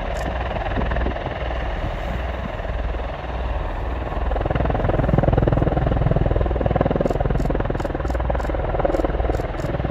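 AH-64 Apache helicopter running, its rotor beating steadily over the turbine noise; it gets louder about four and a half seconds in.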